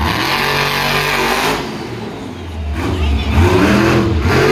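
Monster truck's supercharged V8 engine revving, easing off about halfway and climbing in pitch again near the end.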